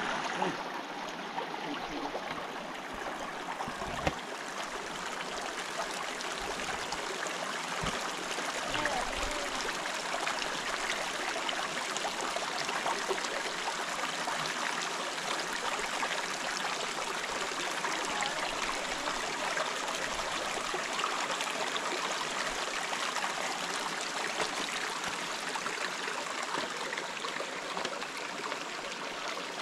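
River water running steadily, an even rush of flowing water, with a single brief knock about four seconds in.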